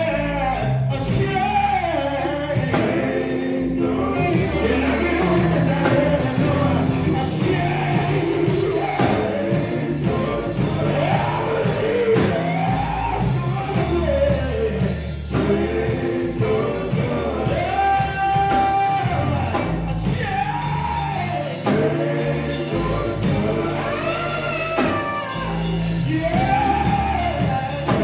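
Male gospel vocal group singing with a live band of keyboard, drums, bass and electric guitar.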